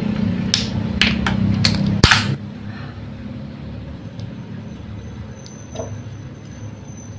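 Fingers clicking repeatedly against the pull tab of an aluminium Coca-Cola can, then about two seconds in the tab gives way and the can opens with a sharp crack and a short hiss of escaping gas.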